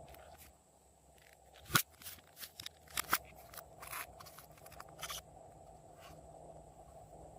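Hands working glossy slime with candy mixed in: a scattered run of sharp sticky clicks and crackles, loudest about two and three seconds in, then quieter.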